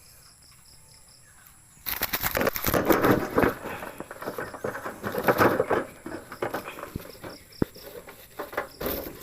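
A freshly caught dove flapping its wings hard while being held, with a noisy, irregular flurry of wingbeats and rustling that starts about two seconds in and goes on for several seconds. Crickets chirp faintly before it starts.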